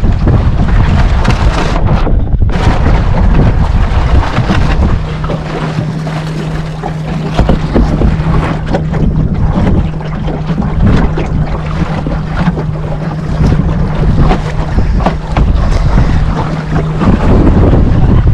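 Wind buffeting the microphone and water splashing and rushing along the hull of a small Puddle Duck Racer sailboat under way in choppy water. A steady low hum runs through the middle.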